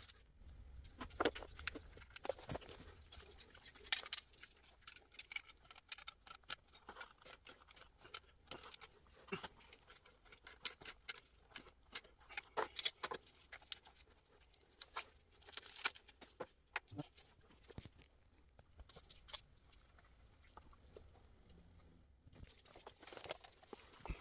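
Irregular light clicks, clinks and small knocks, scattered unevenly and without any steady rhythm, typical of hand work with tools and small metal parts.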